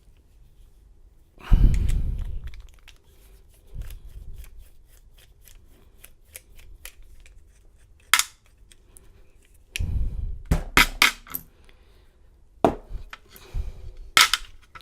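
Metal clicks and knocks from handling a picked-open stainless steel padlock: a heavier thump about a second and a half in, a run of light fast ticks after it, then clusters of sharper clicks.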